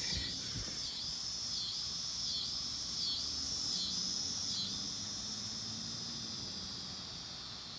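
Insects calling in a loud, high, continuous chorus. It dips and swells a little more than once a second, then holds steady from about halfway through.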